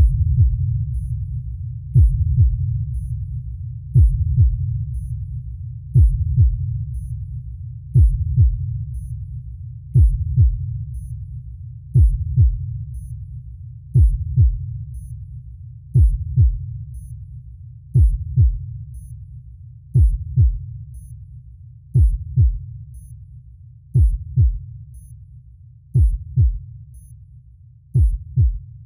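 Heartbeat sound in an experimental electronic synth track: a slow double thump, lub-dub, every two seconds over a low rumble that swells with each beat and fades away before the next.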